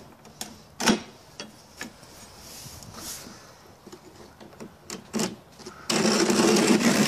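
Carbide scoring knife pressed hard and drawn along a straightedge across cement board, a loud rasping scrape lasting under two seconds near the end, after scattered light clicks and taps as the knife and square are set in place.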